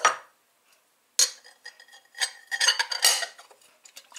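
White ceramic plate and bowl clinking and clattering against each other as the plate is fitted over the bowl of soaked seeds to drain off the rinse water. There is a sharp knock at the start, another about a second in, and a quick run of clinks and rattles about two and a half to three seconds in.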